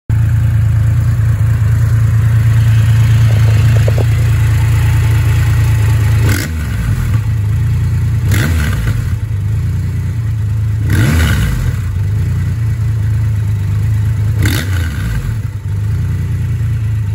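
Triumph Rocket 3R's 2.5-litre three-cylinder engine, fitted with a modified exhaust, idling with a deep, steady rumble and revved in four short throttle blips a few seconds apart, the third the biggest.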